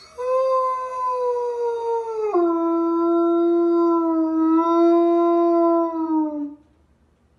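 A dog howling: one long howl that steps down to a lower pitch about two seconds in, holds there, and fades out near the end.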